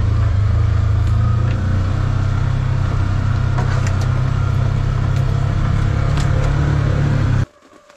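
Motor vehicle engine running steadily with a deep, low hum, cutting off suddenly near the end.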